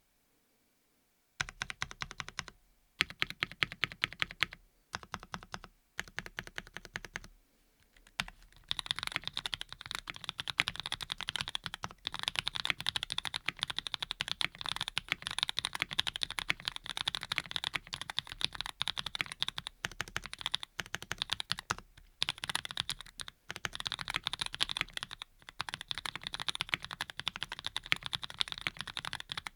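Typing on a Graystudio Think6.5 V2 mechanical keyboard with lubed hybrid switches (Cherry bottom housings with Cream stems and tops): rapid keystroke clacks that start about a second and a half in, come in short bursts with pauses at first, then run as steady fast typing from about eight seconds in.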